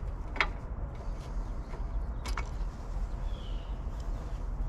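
A few light clicks and taps of small parts being handled inside a tankless water heater as a board section is worked loose, over a steady low hum.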